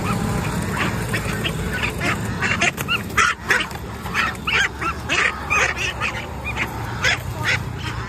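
Caged ducks quacking in a rapid run of short calls, several a second, as one is grabbed and pulled out of the wire cage. The calls come thickest from about two seconds in until near the end.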